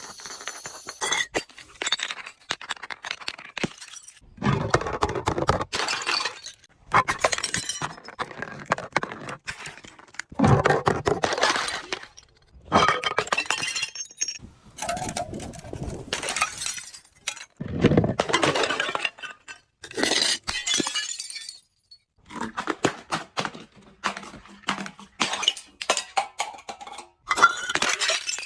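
Glass bottles being crushed and shattering, in a series of crunching, clinking bursts a second or two long with short pauses between them.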